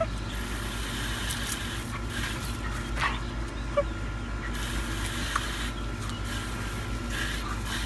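A dog making a few short, high whines over a steady background hum.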